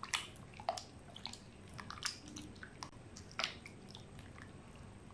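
Hands squishing and kneading small beef chunks in a wet yogurt-and-oil marinade in a glass bowl: soft, irregular squelches with small clicks.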